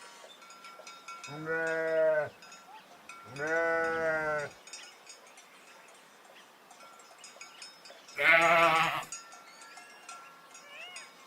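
Sheep bleating three times. Each bleat lasts about a second and has a wavering, quavering pitch.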